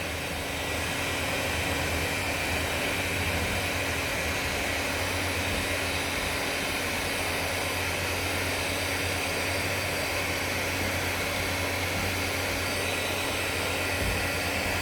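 Hot-air blower running steadily with a constant hum under its rushing air, a little louder from about a second in. It is warming freshly applied glue on a TPU patch to about 50 degrees to activate it.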